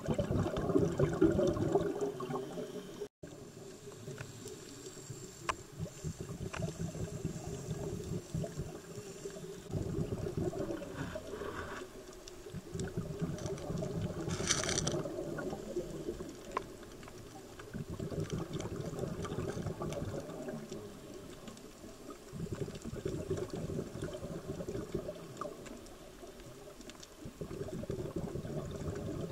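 Scuba diver's breathing heard underwater: exhaled bubbles from the regulator gurgling in surges every few seconds, with a short hiss about halfway through.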